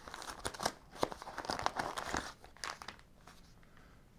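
Brown padded paper mailer being torn open and crinkled as the contents are pulled out. The crackle and rustle are densest for the first two seconds or so, then thin to a few light rustles.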